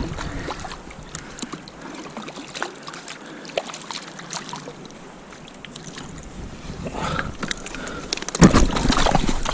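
River water lapping and rushing around a small boat, with scattered small splashes and clicks, while a grayling is played on the line. A louder low rumble starts near the end.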